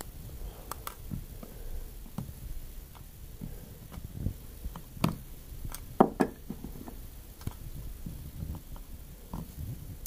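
Clamps being taken off a folded piece of leather and set down: scattered clicks and knocks, the sharpest about six seconds in.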